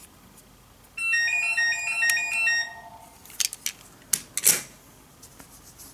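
A phone's electronic ringtone: a short melody of beeping notes for about two seconds, starting about a second in. A few light clicks and knocks follow.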